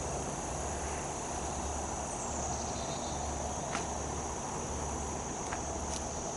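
Steady high-pitched chorus of insects droning without a break, with a few faint clicks.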